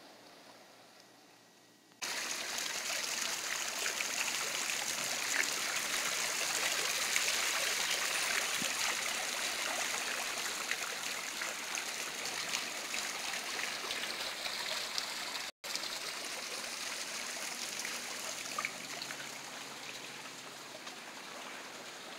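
Running water splashing and trickling steadily. It cuts in abruptly about two seconds in, drops out for an instant past the middle, and eases slightly near the end.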